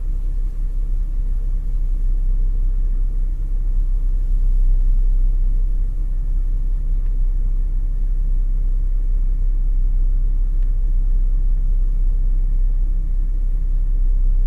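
Strong storm wind blowing across the microphone, a steady low rumble that wavers slightly without letting up.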